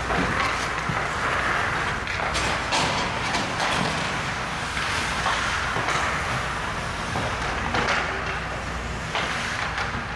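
Ice hockey skate blades scraping and carving on the ice, with irregular sharp clacks of sticks striking the puck and ice, over a steady low rumble.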